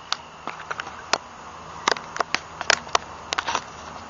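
About a dozen irregular, sharp clicks and crackles right at the microphone, over a steady low hiss, as the white wolf's fur is pressed up against the camera.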